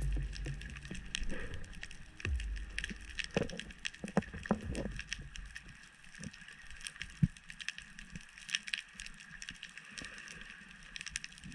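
Underwater sound on a rocky reef, heard through a camera housing: a dense, irregular crackle of sharp clicks over a faint hiss, with a couple of dull low thumps in the first seconds.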